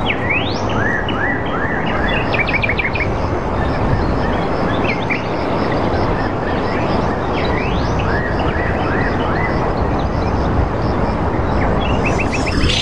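Birds calling over a steady rushing background noise. The calls come as rising whistles and quick runs of short notes, repeated throughout.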